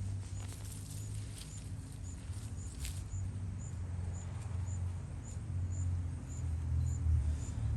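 Rustling and scraping of soil as potatoes are dug out of the ground by hand, with a low rumble and a short high chirp repeating about twice a second behind it.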